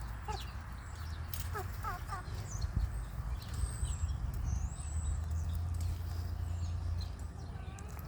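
Young chickens giving short, falling peeps, a little cluster of them about two seconds in, with scattered light clicks over a steady low rumble. A high, thin whistled call runs for a couple of seconds near the middle.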